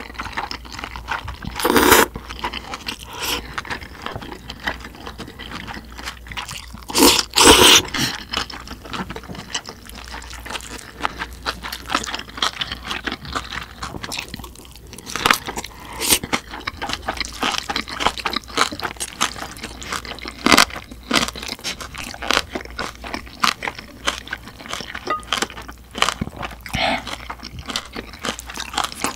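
Close-miked eating: crunchy chewing of spicy kimchi and slurping of spicy mixed buckwheat noodles, made of many small crunches, with two longer, louder stretches about two and seven seconds in.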